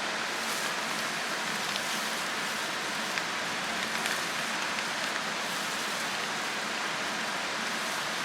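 Steady hissing noise with a few faint ticks scattered through it.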